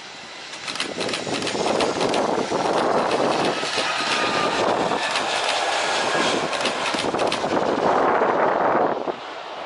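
Jet engines of an Airbus A320-200 airliner running loud during its landing roll just after touchdown. The noise builds over the first couple of seconds, holds with a rough crackle, and drops suddenly near the end.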